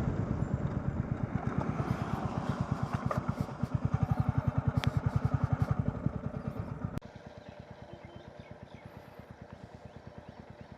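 Motorcycle engine running with an even, rapid beat as the bike slows; about seven seconds in the sound drops abruptly quieter and the engine keeps ticking over.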